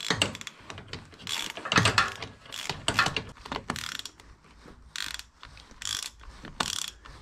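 Socket ratchet clicking in short, uneven runs of strokes as a battery terminal bolt is tightened down.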